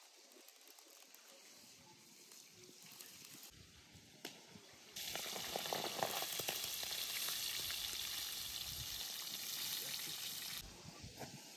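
Hot oil sizzling as chicken fries. The sizzle starts abruptly about five seconds in and cuts off shortly before the end.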